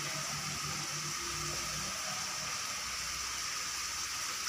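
Chicken handi cooking in a wok, sizzling with a steady, even hiss.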